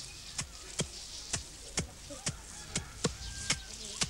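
Wooden sticks beating a heap of dried crop pods on a hard earthen threshing floor to thresh it by hand, a steady rhythm of sharp thuds about two a second.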